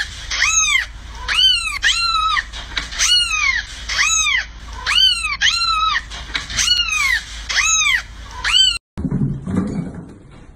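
Cat meowing over and over, about once a second, each high-pitched call rising and then falling in pitch. The meows stop abruptly about nine seconds in.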